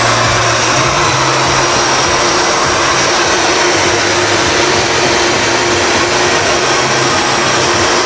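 Electric heat gun running steadily, a loud even rush of hot air over a low motor hum, blown onto a car bumper to speed the drying of fresh paint.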